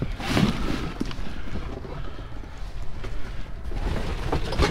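Rummaging through junk in a dumpster: cardboard boxes and plastic bags rustling and shifting under a hand, with irregular knocks as items are moved.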